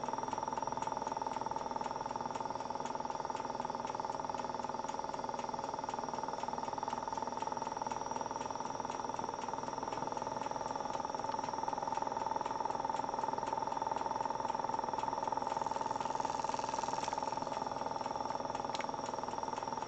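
Quadcopter brushless motor of a DIY spin coater running at about 1,000 RPM, a steady, even whine.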